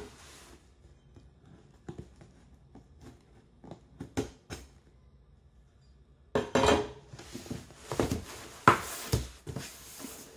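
A cardboard gift box being opened on a table: a few quiet taps and clicks, then from about six seconds in louder scraping and rustling as a knife cuts the sticker seal and the lid is worked loose, with a sharp knock near the end.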